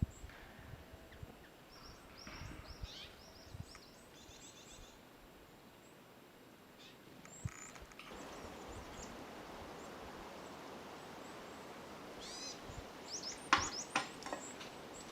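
Small wild birds calling with short high chirps in quick clusters, with more calls near the end. A steady hiss comes in about halfway, and a sharp knock sounds near the end.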